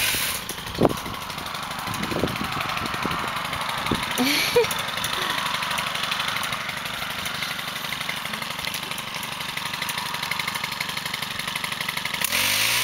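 Stihl pole pruner's small petrol engine idling steadily, then revving up near the end.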